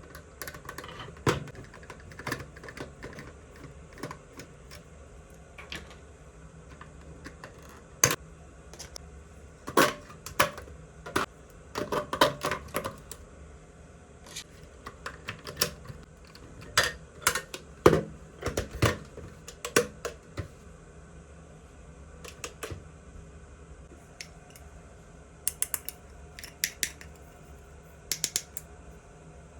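Small plastic toy parts and packaging being handled: irregular clicks, taps and knocks, with a quick run of sharp clicks near the end.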